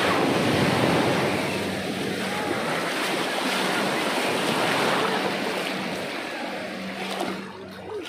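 Artificial waves in a wave pool rushing and washing over the shallows, a loud surging wash that eases off near the end, with a faint steady low hum underneath.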